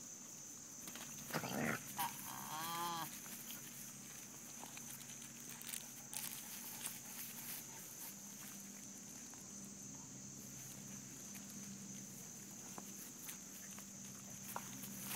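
Two dogs playing tug-of-war over a rope toy, with a short burst of dog vocalizing, a yelp then a quick run of whiny calls, about two to three seconds in. A steady high insect buzz runs underneath.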